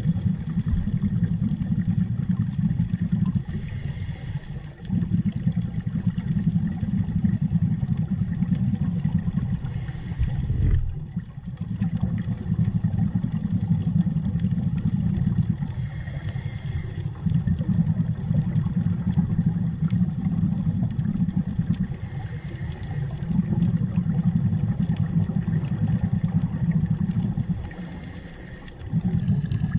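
A scuba diver breathing underwater: a low rumble of exhaled bubbles, broken about every six seconds by a short hiss from the regulator on each breath in.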